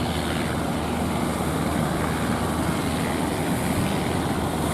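A fishing boat's engine running steadily, with a constant low drone, under a rushing noise of wind and water.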